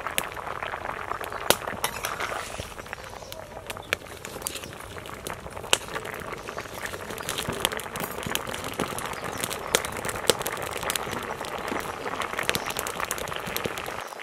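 Elephant foot yam pieces parboiling at a rolling boil in a steel kadai, a steady bubbling with many scattered sharp pops and clicks.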